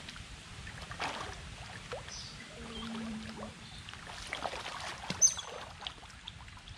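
Pond water splashing and sloshing irregularly as small animals swim and tussle in it, with a sharp high chirp about five seconds in.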